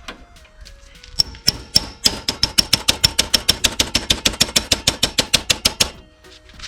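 Rapid, evenly spaced metallic tapping, about eight strikes a second with a ringing note, starting about a second in and stopping shortly before the end; faint background music underneath.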